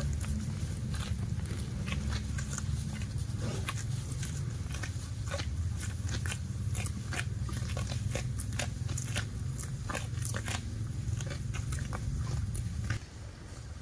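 Cattle at close range making irregular clicking and crunching sounds, over a steady low rumble.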